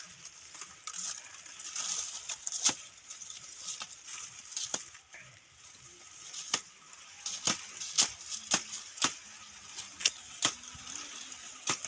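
Dry leaves and stalks crackling and snapping as a person pulls and breaks them, with many sharp, irregular snaps that come thicker in the second half.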